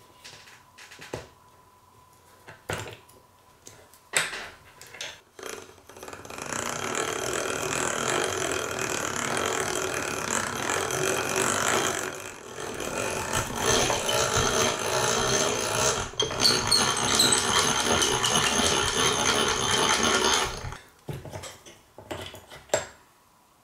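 Hand-cranked bench drill press boring through a knife-handle block held in a small vise: a steady grinding scrape of the twist bit cutting that lasts about fourteen seconds, with a brief break near the middle. Before and after it, scattered knocks and clicks of the vise and workpiece being handled.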